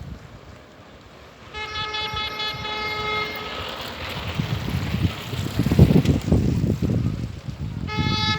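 A horn sounding two long single-pitched blasts: the first lasts under two seconds, the second starts near the end. Between the blasts a rumbling, knocking noise grows loud.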